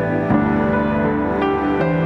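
Background music: a slow, soft instrumental of held chords, moving to a new chord about a third of a second in and again near the end.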